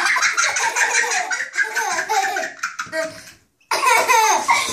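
Young children laughing and giggling together, with a short pause about three and a half seconds in before the laughter starts again.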